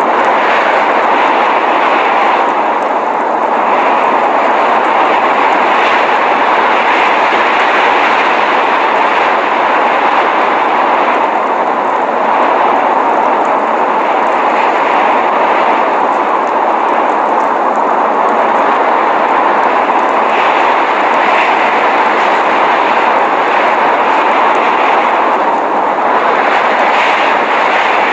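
Loud, steady rushing noise of a snowstorm: wind and blowing snow, even and unbroken.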